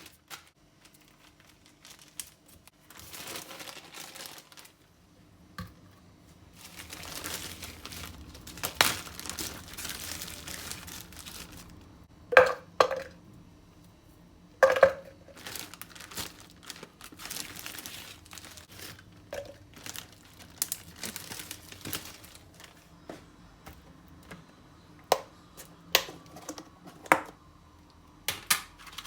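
Hands working in a kitchen: rustling and crinkling, with scattered taps and a few sharp ringing clinks, two close together about twelve seconds in and another about two seconds later.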